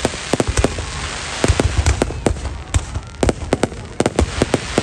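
Fireworks display: a rapid, irregular run of sharp bangs and pops over a continuous crackling hiss and low rumble.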